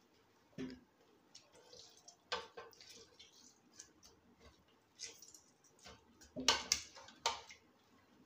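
Grated potato squeezed by hand to press out its water and dropped into a glass bowl: scattered short wet squelches, drips and light taps, the loudest cluster near the end.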